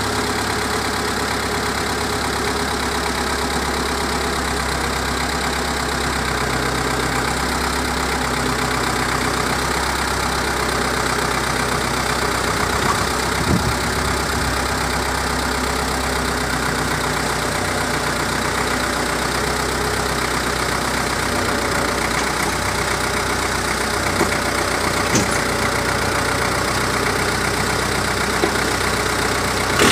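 MTZ-80.1 tractor engine idling steadily.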